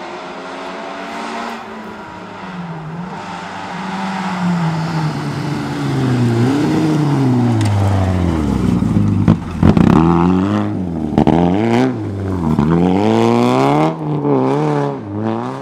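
Peugeot 206 rally car on a gravel stage, its engine revving hard as it approaches and passes close by, the pitch climbing and dropping sharply again and again with the gear changes. A few sharp cracks come as it goes past.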